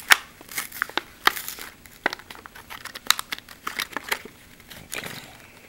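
Plastic blister and cardboard backing of a Hot Wheels car package crinkling and tearing as it is opened by hand, in irregular sharp crackles that thin out in the second half.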